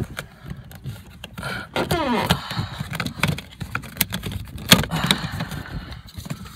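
Plastic and metal clicks, knocks and rattles as the car's door handle is pried and worked loose from the door, with a squeak that falls in pitch about two seconds in.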